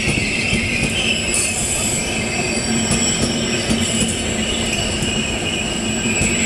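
Double-deck regional train coaches rolling past, their wheels rumbling on the rails with a steady high-pitched squeal. Sharp clicks come through now and then as the wheels cross rail joints.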